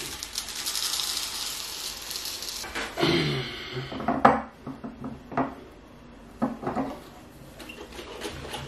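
Instant iced tea granules poured from a jar through a funnel into a glass fermenter jug: a steady gritty hiss of pouring granules for nearly three seconds. It is followed by a few separate knocks and clinks of glass and plastic as the funnel comes off and the jug is handled and tipped over to mix.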